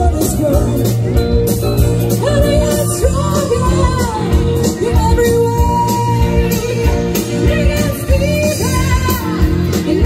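Live rock band playing: a woman sings lead over electric guitars, bass guitar, keyboards and a drum kit.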